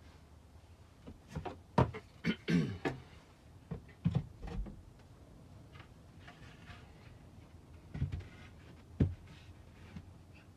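Wooden cabinet panels being handled and fitted by hand: a series of knocks and short scrapes as the boards bump and rub against each other. They cluster around two to five seconds in, with two more knocks near the end.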